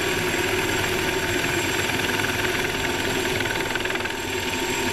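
Composite FX XE-series single-seat helicopter in low flight, its engine and rotor running steadily as heard from the pilot's seat, a constant drone with a steady high whine.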